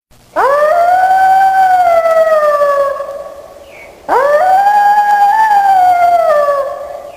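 Wolf howling: two long howls, each sweeping up at the start, holding a steady pitch and then sagging as it fades, the second beginning about four seconds in.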